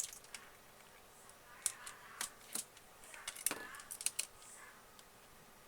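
A series of sharp plastic and metal clicks and taps as a tablet's motherboard and small parts are handled and set into its housing, about half a dozen irregular knocks.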